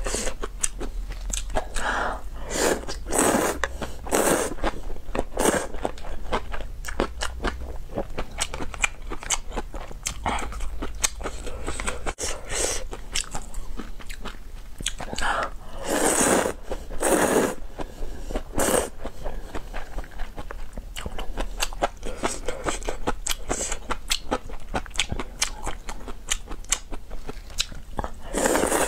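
Close-miked eating sounds of a person working through a cup of luosifen (river-snail rice noodles): repeated slurps of noodles and wet chewing, with many sharp clicking mouth sounds.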